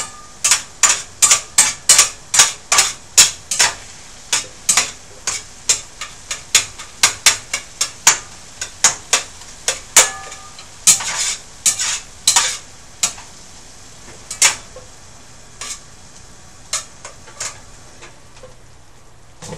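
A spoon stirring and scraping a ground turkey and tomato mixture in a cooking pan, clinking against the pan in quick repeated strokes, about three a second at first, then slower and more scattered until they stop near the end.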